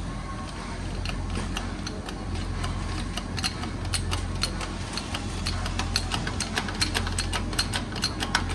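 Sharp, irregular metallic ticks and clicks as a hydraulic shop press loads a Subaru 4EAT top gear to press its bearing off, coming faster and louder over the seconds. A steady low hum runs underneath.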